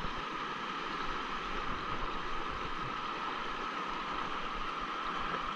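Shallow creek water rushing over rocks, a steady even rush with no breaks.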